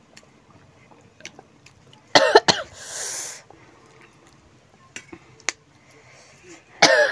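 A woman coughs about two seconds in, then lets out a breathy hiss, the kind of reaction that chilli-hot instant noodles bring on. Otherwise there are faint clicks of steel forks on steel plates, and a loud vocal burst near the end.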